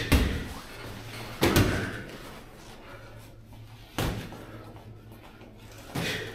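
Four sharp thuds of boxing gloves landing punches during sparring, about a second and a half, two and a half, and two seconds apart, over a steady low hum.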